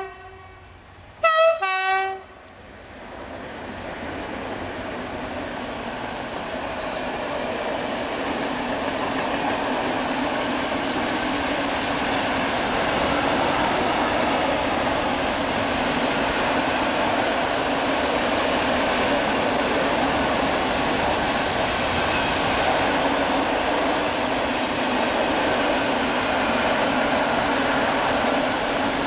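PKP Cargo ET41 twin-section electric locomotive sounding a short two-note horn blast about a second in, then the locomotive and a long rake of loaded hopper wagons passing close by: a steady rolling rumble that builds over the first several seconds and holds.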